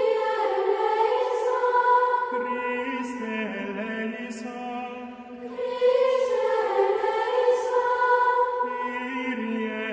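Slow sung chant of voices holding long notes and stepping between pitches; the same phrase comes round again about every six seconds.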